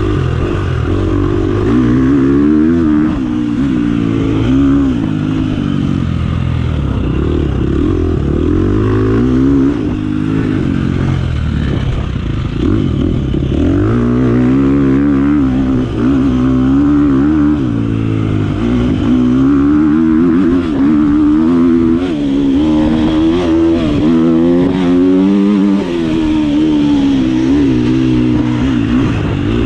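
Dirt bike engine under hard riding, its pitch climbing and dropping over and over as the throttle is opened and rolled off through the turns and gear changes.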